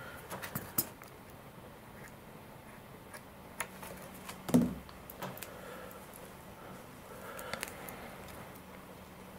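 Scattered small clicks and taps of hands handling wires and tools at a workbench, with one louder knock about four and a half seconds in.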